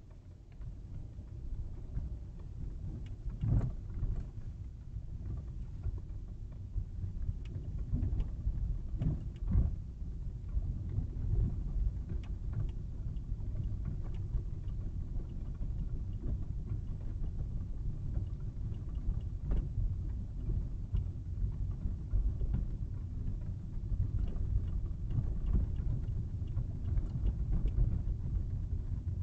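Car driving, heard from inside the cabin through a windshield dashcam's microphone: a steady low rumble of engine and road noise that grows louder over the first couple of seconds, with occasional short knocks, the strongest about 4 and 9.5 seconds in.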